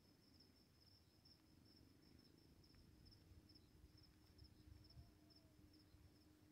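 Crickets chirping faintly: a thin, high-pitched chirp repeating evenly, over a faint low rumble.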